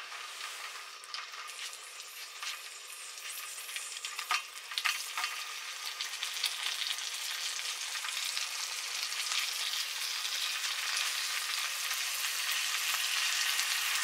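Whole yellow perch frying in melted butter in a small stainless pan: a steady sizzle and crackle that grows gradually louder, with a few sharper pops about four seconds in.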